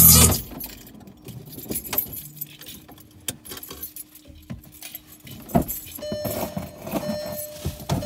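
Background music cuts off at the start, leaving scattered small clicks and light rattles, like keys being jangled. A faint steady tone runs in the first half, and another, higher one joins about six seconds in.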